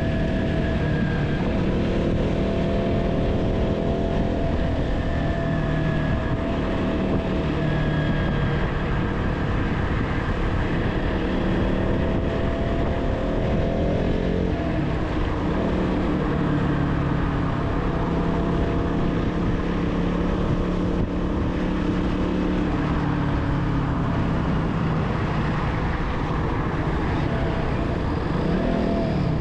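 KTM Duke 200 single-cylinder motorcycle engine running under way, its note shifting with the revs and dropping about halfway through, over a steady low rumble.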